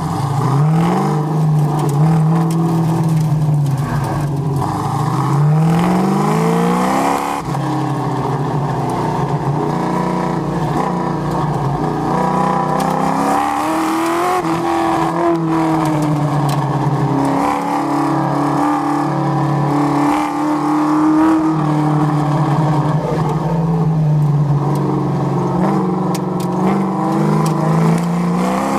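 1969 Chevrolet Camaro's engine driven hard on an autocross course, heard from inside the car: it revs up on the throttle and falls back for the corners, over and over. About seven seconds in, the climbing pitch breaks off sharply at the shift from first to second gear.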